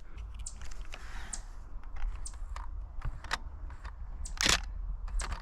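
Canon Rebel T7i DSLR shutter firing, one sharp click about four and a half seconds in, among scattered light clicks and rustles of camera handling, over a low rumble.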